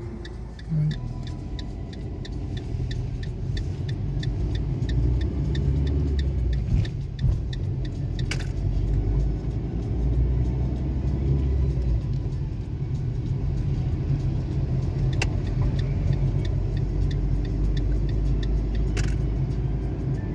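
Car driving along a road, heard from inside the cabin: a steady low rumble of engine and tyres, with a few sharp clicks.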